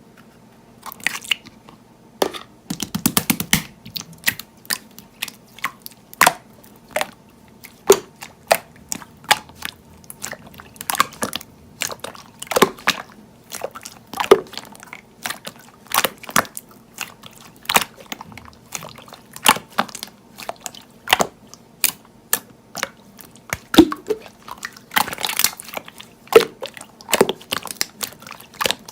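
Slime being pressed and poked by hand, giving sharp, irregular clicking pops about once or twice a second, with a couple of denser crackling stretches.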